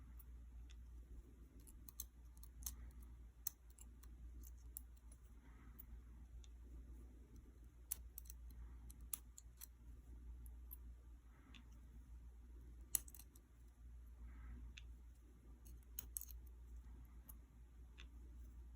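Faint, irregular clicks of small metal lock parts being handled as an ASSA Desmo lock cylinder is taken apart, the sliders, springs and retention pieces coming out, over a low steady hum.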